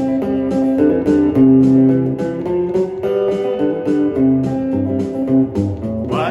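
Instrumental music led by guitar, with a bass line and a steady beat. A rising slide comes near the end.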